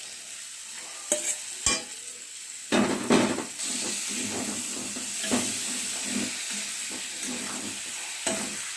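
Fried chicken pieces going into a kadai of frying onion and garlic masala: a few light clicks, then from about three seconds in a steady sizzle as a spatula stirs and scrapes the pan.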